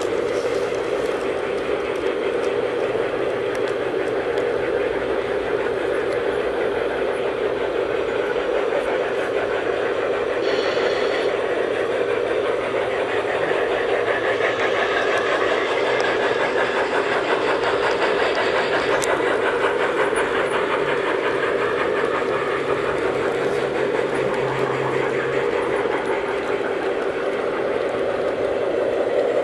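G-scale garden railway model trains running on the track: a steady whir of motors and wheels.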